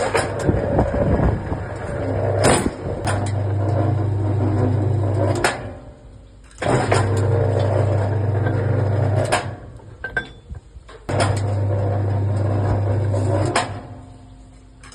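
Heavy-duty bar bending machine's electric motor and gearbox running in three separate cycles of about three seconds each, with a steady low hum. Sharp metallic clanks mark the start and end of each cycle as the machine bends steel rebar.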